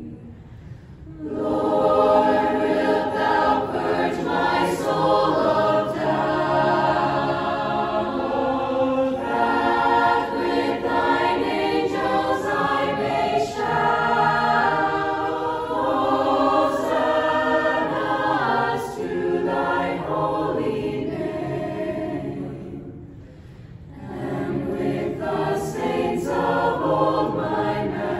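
Mixed youth choir of girls' and boys' voices singing a song together, with a short pause about a second in and a brief lull between phrases near the end before the voices come back.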